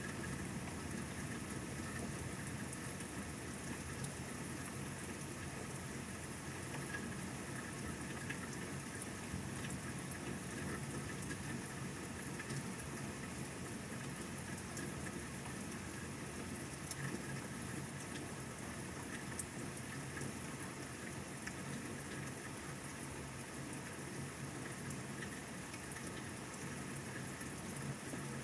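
Steady rain falling, an even hiss with faint scattered drop ticks and a low hum underneath.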